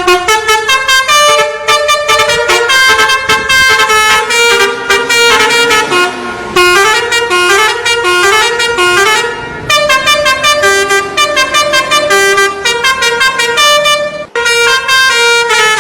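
Six-trumpet basuri 'telolet' horn on an odong-odong, playing a fast tune of short, blaring horn notes in quick succession, with a few brief breaks.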